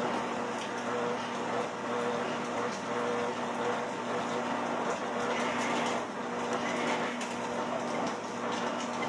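Treadmill running under a walker: a steady motor hum with belt and deck noise and the thud of footfalls, a little loud on its concrete floor.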